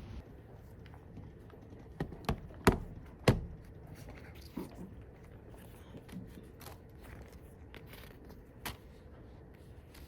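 Sharp knocks and clicks of small objects being handled and set down: four close together about two to three and a half seconds in, then a few fainter clicks spaced out afterward.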